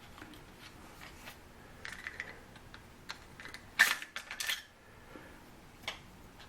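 Scattered light metallic clicks and clacks of an AR-15 being handled as its stiff takedown pins are worked. The loudest clack comes about four seconds in.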